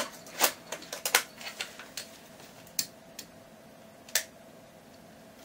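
Sharp plastic clicks and taps from a Sony Mavica MVC-FD70 floppy-disk camera as a battery is fitted into it and it is handled, about half a dozen scattered clicks, the loudest in the first half.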